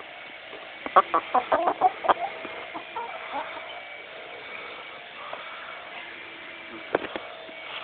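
Chickens clucking: a quick run of short clucks about a second in, a few more around three seconds, then a lull before a couple more near the end.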